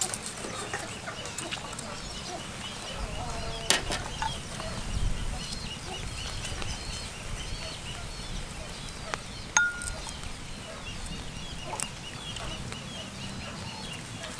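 Sharp clinks of a steel cleaver against a wire grill rack as squid grills over charcoal, a handful of them spread out, one ringing briefly just under ten seconds in. Faint rapid chirping continues in the background.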